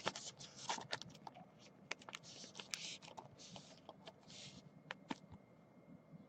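Trading cards being handled on a table: scattered light taps and clicks with several brief sliding scrapes.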